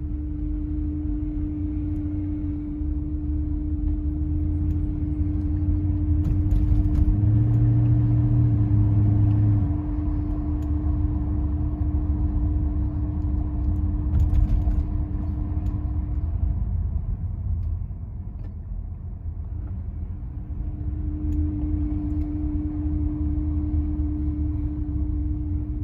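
A 2001 Mercedes-Benz CLK55 AMG's V8 engine is running with a steady hum over its rumble; the owner puts the hum down to the belt tensioner pulley. The hum drops out for a few seconds past the middle, then comes back. A deeper drone swells for a couple of seconds about a third of the way in.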